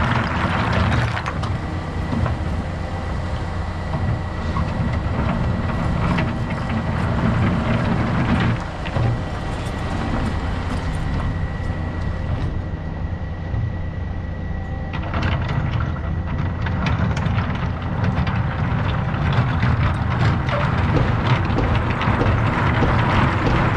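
Takeuchi TB2150 excavator's diesel engine running steadily under load with its hydraulics working, and the gritty scraping and clatter of the bucket working rock, which grows louder over the last third.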